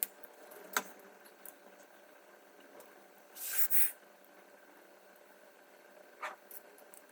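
A few sharp clicks and taps of small objects being handled, with a short hiss lasting about half a second a little past the middle.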